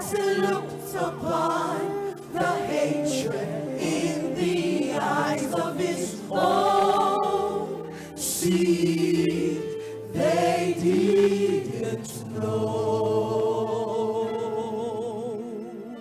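A woman singing a slow gospel song solo, with a choir and sustained accompaniment behind her; her held notes waver with vibrato in the last few seconds.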